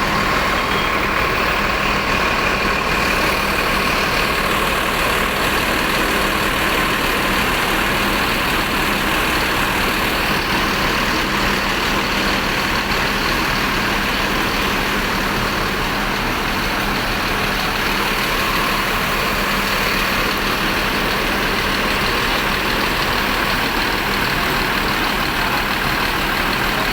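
Bus engine running steadily, an even drone with no change in pace.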